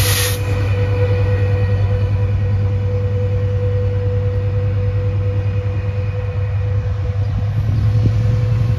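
Metrolink diesel locomotive running steadily at the platform: a strong low engine drone with a thin steady whine above it. A brief hiss comes right at the start.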